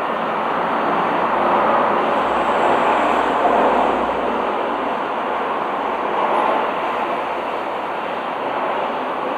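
Hot air rework station blowing a steady rush of hot air over the phone board, softening the CPU for removal.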